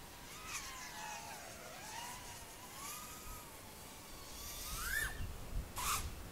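Faint whine of a 3-inch FPV quadcopter's Emax ECO 1404 6000 Kv motors on 4S, wavering in pitch as the throttle changes, with a quick rising whine about five seconds in.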